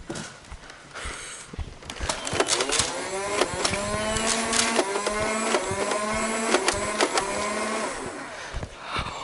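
Motorised Nerf blaster whirring, starting about two seconds in and stopping near the end. Its pitch climbs, dips and climbs again several times, as darts are fired, with sharp clicks among them.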